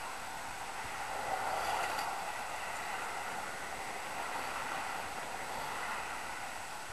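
Steady hum of a distant engine, with a few faint clicks about two seconds in.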